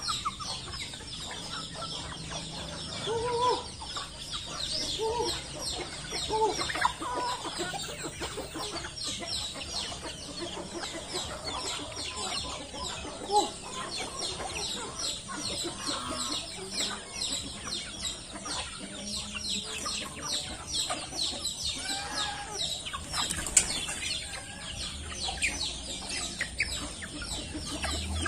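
A flock of young bantam chickens clucking and giving many short, high calls as they feed, with a few sharp clicks.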